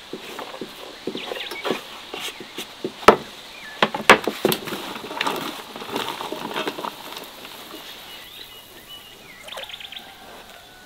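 Irregular knocks and taps, the two loudest and sharpest about three and four seconds in, with birds chirping faintly near the end.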